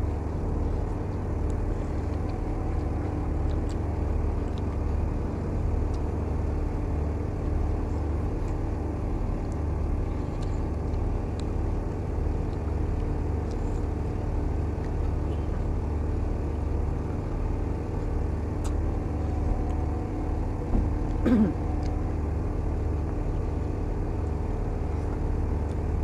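Steady low drone of a running engine, unchanging throughout, with a brief voice-like sound about three-quarters of the way through.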